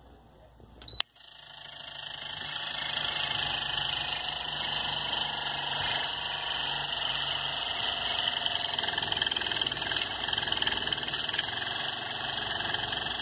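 Mallory electric fan motor switched on with a short click about a second in, spinning up over about two seconds and then running steadily with a fast rattling knock. The rattle comes from the motor shaft knocking in its worn rear sleeve bushing.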